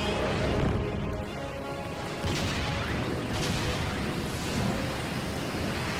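Action-cartoon soundtrack: dramatic music over a steady rushing roar, with sudden booming blasts about two, three and a half, and four and a half seconds in.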